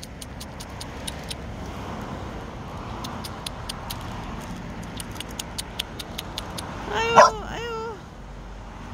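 A young dog gives one short whining yelp with a wavering pitch about seven seconds in, after a stretch of light scattered clicks.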